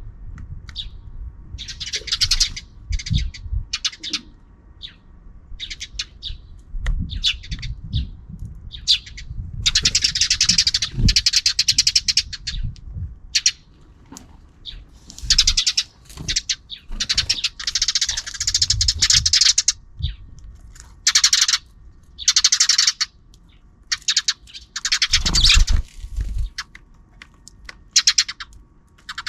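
Sparrows chirping and chattering: many short chirps, broken by several longer runs of rapid chatter that last a couple of seconds each. Soft low knocks sound underneath.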